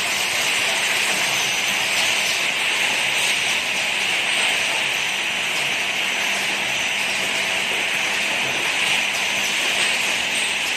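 Automatic syrup bottle filling and ROPP capping machine running: a steady mechanical hiss with a faint constant hum.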